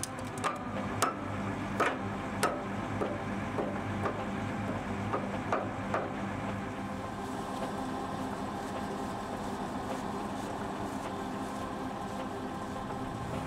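A hammer striking a steel excavator boom pin to drive it into its bore, about ten sharp metallic blows in the first six seconds. A steady engine hum runs underneath.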